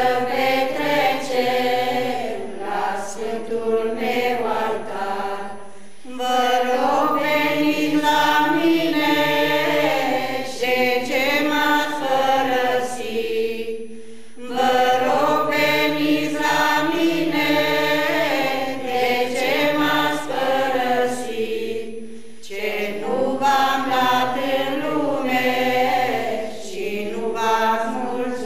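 Mixed choir of men and women singing an Orthodox devotional hymn (pricesne) in unison-like chant without instruments, in long phrases broken by short breaths about every eight seconds.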